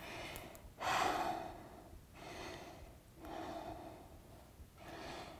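A woman breathing audibly, about four slow breaths in and out, the first, about a second in, the strongest.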